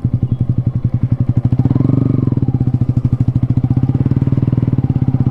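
Yamaha 155 cc single-cylinder motorcycle engine running steadily at low cruising revs, its exhaust note pulsing evenly and swelling briefly about two seconds in.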